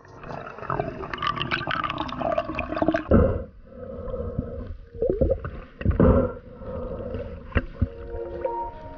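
Water gurgling and sloshing around the camera, broken by several sharp knocks.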